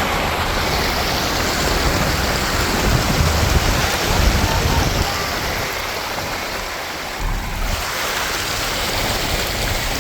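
A vehicle driving through a creek: steady rushing and splashing of water with a low rumble, easing off briefly about seven seconds in.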